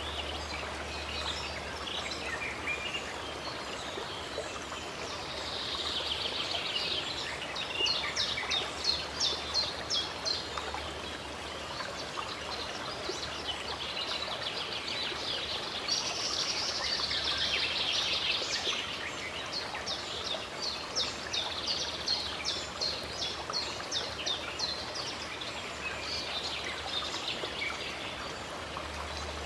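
Steady running water of a small fountain or stream, with songbirds calling over it in series of rapid high chirps, first about a quarter of the way in and again through the second half.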